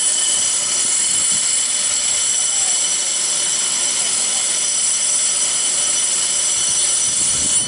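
Electric train with a loud, steady high-pitched whine made of several held tones, which cuts off abruptly at the end.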